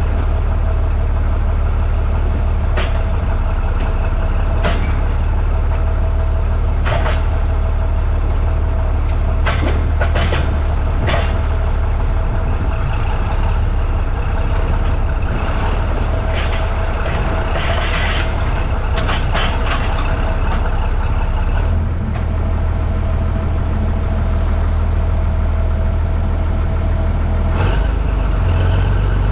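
Engine of a vehicle towing an old harvester, running steadily under load with a deep hum and a faint steady whine, broken by scattered knocks and clanks.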